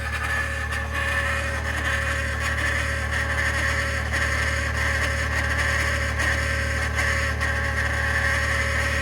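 2021 Ford F-150 PowerBoost running after a cold start in deep cold, a steady low hum with a rushing, grinding-type noise over it: the cavitating or grinding noise the owner is recording.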